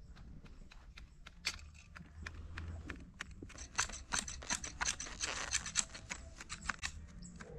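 Garden shears snipping cypress topiary: a run of irregular, quick sharp snips, thickest about five seconds in.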